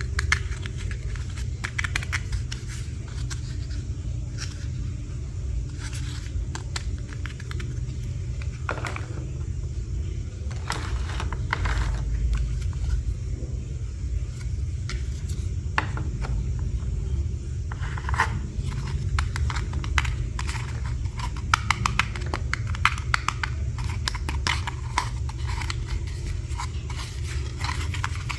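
Small plastic toy pieces and packaging being handled and unboxed: scattered clicks, taps and short scrapes over a steady low hum.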